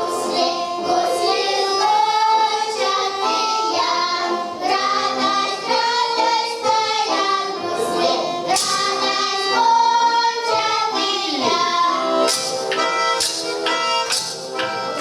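Voices singing a Russian folk song with instrumental accompaniment, with sharp percussion strikes coming more often in the last few seconds.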